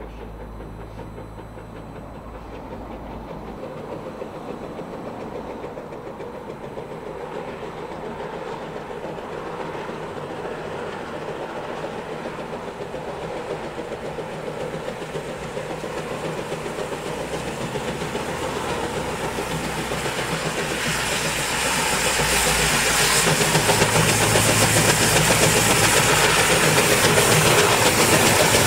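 1861 R. Stephenson & Co. steam locomotive and its wooden coaches approaching and rolling past, the running noise growing steadily louder. From about two-thirds of the way in a strong hiss of steam joins it as the engine passes close.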